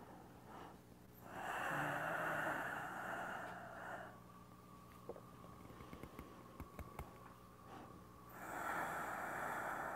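Slow, deep paced breathing of a person doing qigong, audible on the microphone: two long breaths of about three seconds each, some seven seconds apart, with a few faint clicks between them.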